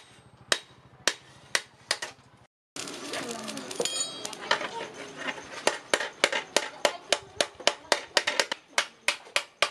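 Hand-forging: a hammer striking a steel knife blank held in tongs on a post anvil, about two blows a second. After a brief break, a faster run of sharp blows, about three a second, on the red-hot blade.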